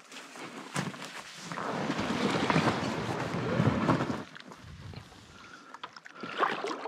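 Inflatable packraft's fabric and tubes rustling and scraping as someone climbs into it from the grassy shore and pushes off, loudest for a couple of seconds in the middle, with a few small knocks.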